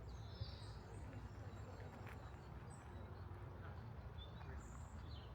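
Birds giving short, high chirps now and then over a steady low background rumble.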